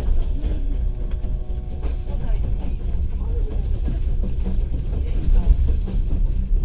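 Passenger train carriage running along the track, a steady low rumble heard from inside the compartment, with faint voices in the background.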